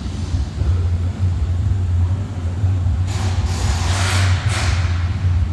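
Steady low drone of a running vehicle, with a hiss rising over it from about three seconds in for a second and a half.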